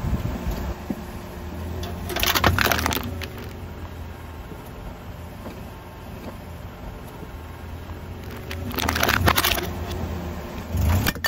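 A slowly rolling car tyre crushing small objects on asphalt, with two loud crackling crunches, about two seconds in and again about nine seconds in, over the low rumble of the car; a short burst of clicks and a thump comes near the end.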